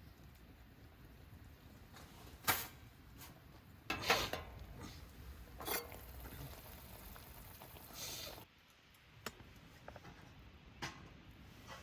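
Camp cookware and utensils being handled: a few separate light knocks and clinks, the loudest about 4 seconds in, over a faint low background that drops away suddenly past the middle.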